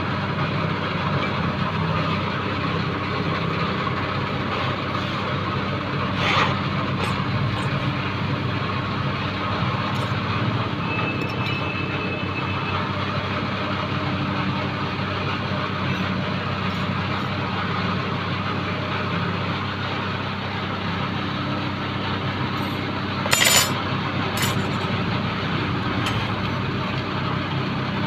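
Steady low mechanical drone, like an engine or blower running, with no change in pitch. A sharp knock cuts through about six seconds in, and a louder short clatter comes late on.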